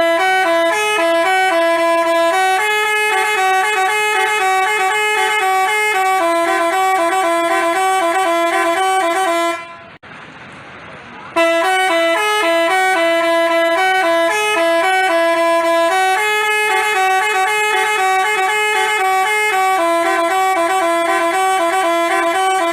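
Telolet basuri multi-tone bus horn playing a tune of loud, held notes that step up and down in pitch. The tune stops just before ten seconds in, leaving a short lull of background hiss, then starts over abruptly and plays again.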